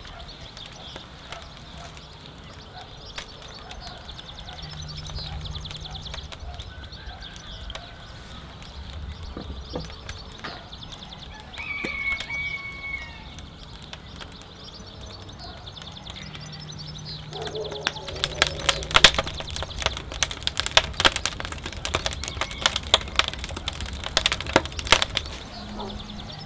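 Kitchen handling sounds: a lemon half twisted and squeezed on a glass citrus juicer, then olive oil poured into a terracotta bowl. A dense run of sharp clicks and taps, the loudest part, fills most of the second half.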